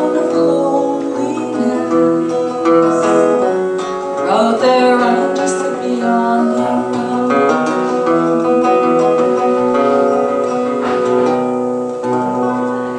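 Acoustic guitar playing the closing instrumental passage of a song, plucked notes ringing over held chords.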